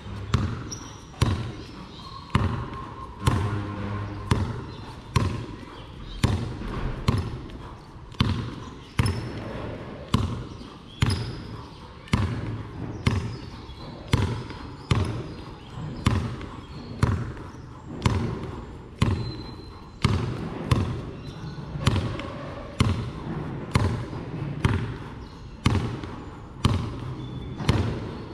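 Basketball dribbled hard on a concrete court: sharp bounces in a steady, even rhythm, as in a continuous ball-handling drill.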